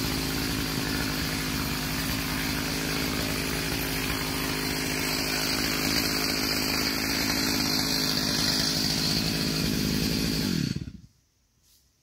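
Stihl MS 462 two-stroke chainsaw running steadily at an even pitch, cutting off sharply near the end.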